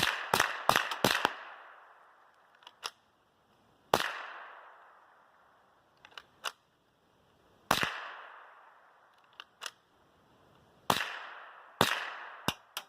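.22 semi-automatic rifle firing: a quick string of about six shots, then single shots at uneven gaps of one to three seconds, the louder ones trailing an echo. The rifle is jamming between shots.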